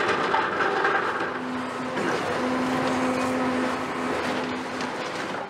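Large excavator running, a steady engine drone over a dense mechanical noise.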